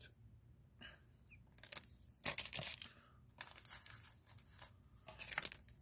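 Plastic trading-card wrappers crinkling as they are handled, in several short, irregular rustles and crackles.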